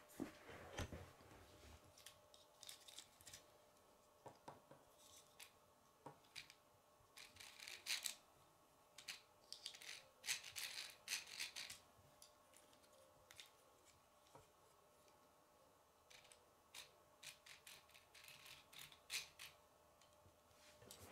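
Plastic K'nex pieces clicking and rattling as they are handled and fitted onto a geared hand-mixer model: scattered light clicks with quiet gaps, busiest near the middle and again towards the end.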